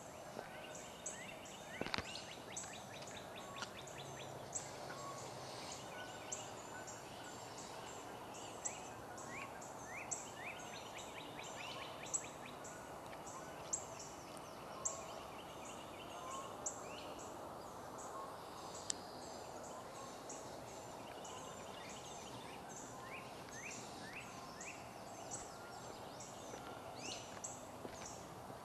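Wild birds singing and calling, with short high chirps repeating throughout and several quick runs of falling notes, over a steady outdoor background hiss. A few sharp clicks stand out, one about two seconds in.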